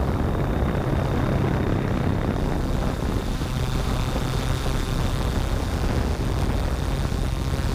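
Yuneec Typhoon G quadcopter in flight, its electric motors and propellers running with a steady buzz, heard from the camera mounted on the drone itself.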